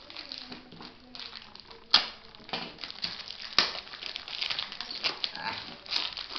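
Clear plastic courier bag and the paper packing inside it crinkling and rustling as it is handled and pulled open by hand, with two sharp clicks about two seconds in and a little past halfway.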